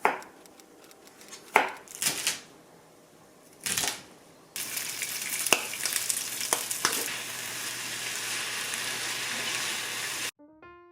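A few sharp crunches and rustling bursts, then, from about four and a half seconds in, a steady sizzle of food frying in a pan with a few clicks of a utensil. The sizzle cuts off abruptly near the end.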